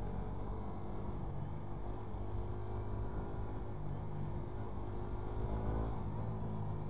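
Motorcycle engine running while riding, with low road and wind rumble; the engine note rises briefly about five and a half seconds in.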